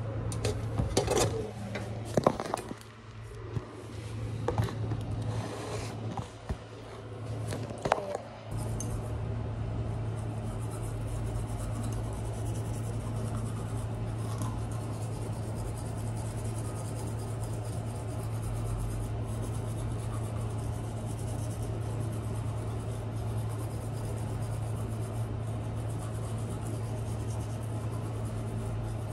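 A few knocks and rubbing sounds from things handled at a bathroom washbasin during the first eight seconds. After that only a steady low hum with an even hiss remains.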